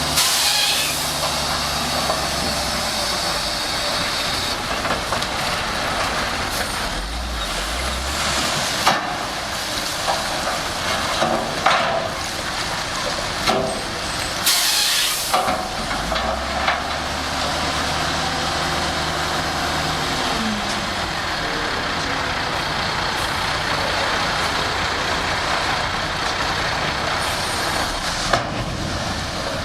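Shantui SD16 crawler bulldozer working: the diesel engine runs steadily, its low hum swelling and fading with the load, under a constant hissing rush of noise, with several short loud bursts, the loudest about fifteen seconds in.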